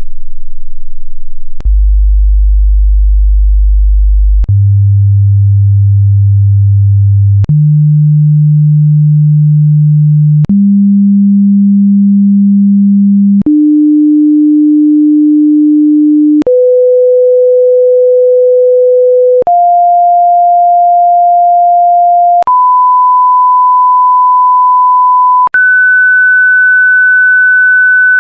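Pure sine-wave test tones stepping up in pitch, each held for about three seconds. They run from a deep low hum up to a clear high tone near 1.5 kHz, about ten steps in all, with a faint click at each change of tone.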